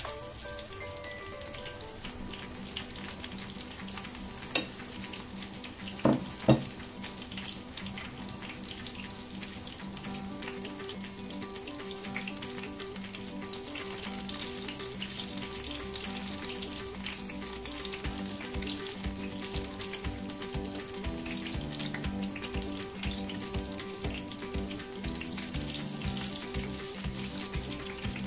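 Akara bean fritters deep-frying in a pan of hot oil: a steady sizzling crackle of bubbling oil. A few sharp knocks come about four to six seconds in.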